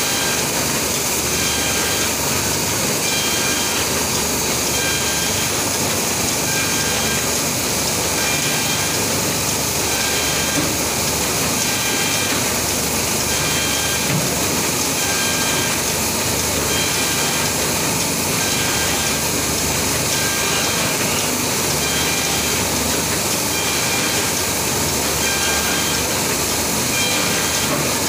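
Polygraph hook-thread book sewing machine running steadily: a continuous mechanical clatter with a regular repeating beat from its sewing cycle.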